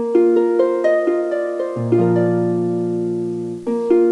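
Background music: a plucked-string melody of short notes over held bass notes, starting abruptly and repeating its phrase near the end.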